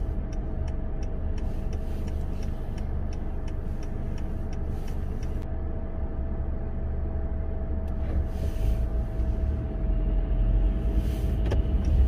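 Car turn-signal indicator ticking in an even tick-tock over the low rumble of the engine and tyres heard inside the cabin. The ticking stops about five seconds in as the signal cancels after the turn. The rumble grows louder near the end.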